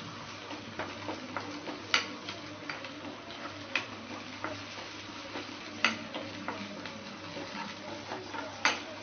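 Shallots and garlic sautéing in oil in a pan, stirred with a spatula: a faint steady sizzle with light scraping ticks, and the spatula knocking sharply against the pan four times, the loudest sounds.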